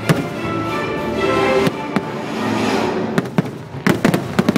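Aerial fireworks bursting with sharp bangs, coming in a rapid cluster near the end, over the show's accompanying music.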